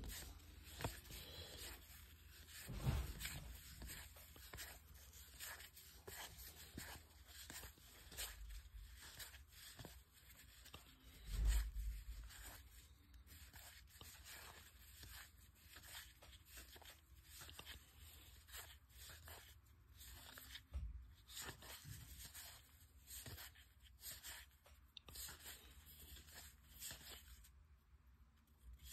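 Baseball trading cards slid one by one off the front of a hand-held stack and onto the back: a run of soft papery slides and flicks, with a low thump about three seconds in and a louder one near the middle.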